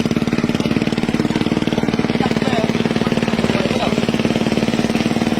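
Motorcycle engine, modified to keep running in flood water, running steadily with fast, even exhaust pulses.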